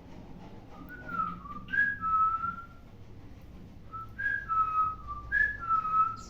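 Clear whistling: a short phrase of gliding, up-and-down notes, repeated twice.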